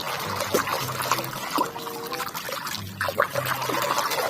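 Water trickling and splashing as a muddy toy car is rinsed by hand in a basin of clean water.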